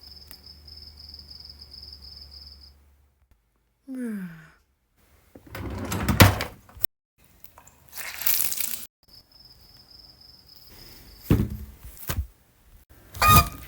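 A string of separate home-made sound effects: a high thin steady whine that comes twice, a brief falling squeak, several noisy rustling bursts, and sharp thunks and knocks, the loudest near the end.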